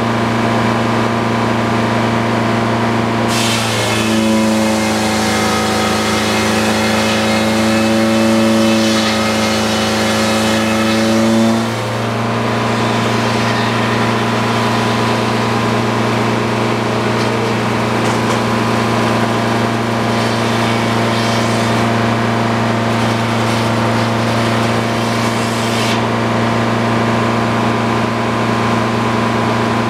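Engine-driven circular sawmill running: a steady engine drone throughout, with the big circular blade biting into a white pine log from about three seconds in to about twelve, a loud ringing hum whose pitch sags slightly under the load of the cut. A lighter rushing hiss follows until near the end.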